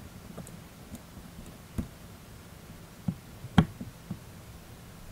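Small metal parts of a spinning reel's line roller clicking and tapping against each other as they are taken apart by hand: a handful of short, light clicks, the loudest about three and a half seconds in.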